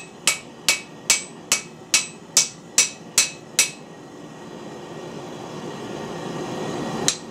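Hand hammer blows on a red-hot steel bar on an anvil, each strike ringing briefly, about two and a half blows a second; nine blows, then the hammering stops a little under four seconds in. A low rushing noise then grows louder, and one more blow lands near the end.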